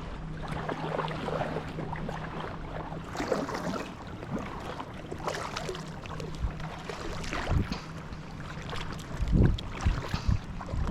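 Water splashing and lapping around a kayak on a lake, in irregular strokes, with wind buffeting the microphone in a few low gusts.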